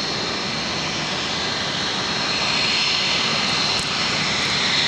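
Boeing 757-200 jet engines running, a steady rushing noise with a thin high whine on top, growing louder about halfway through.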